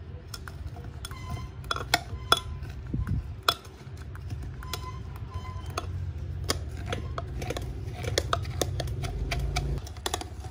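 Stainless-steel muddler pressing and crushing pomegranate arils and ice in a tall clear container, with irregular clicks and knocks of the muddler and ice against the container over a low, steady crushing rumble. The two loudest knocks come about two seconds in.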